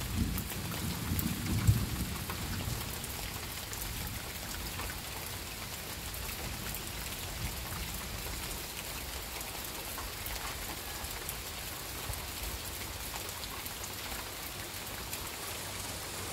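Light, steady rain falling on trees and undergrowth: an even hiss with fine drop ticks. A brief low rumble sounds in the first two seconds.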